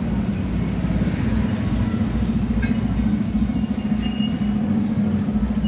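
A motor engine running steadily close by, a low even hum with a fast pulse, amid street traffic; a single sharp click about halfway through.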